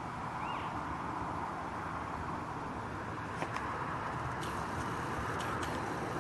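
Steady rush of distant road traffic, slowly growing louder, with a short faint chirp about half a second in and a few faint clicks in the second half.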